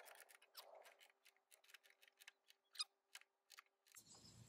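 Faint, irregular small clicks of a torque wrench's ratchet as the mower's blade bolt is tightened, about a dozen or more, one a little louder near three seconds in.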